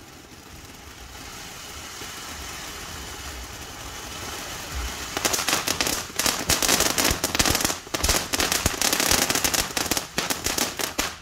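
Ground fountain firework burning: a steady hiss of spraying sparks that slowly grows louder. About five seconds in it breaks into rapid, dense crackling, which dies down just before the end.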